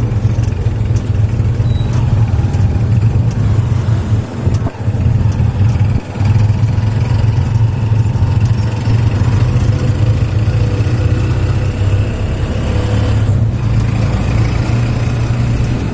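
Steady low drone of a motor vehicle's engine on the move, with two brief dips in level about four and six seconds in.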